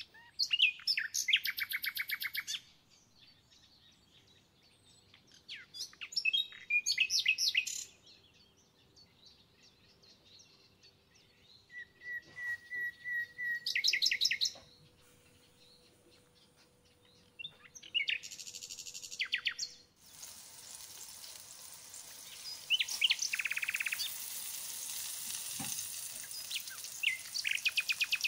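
A songbird singing in repeated bursts of rapid high trills and chirps. About twenty seconds in, a steady sizzle of chicken cutlets frying in oil in a pan starts and runs under the song.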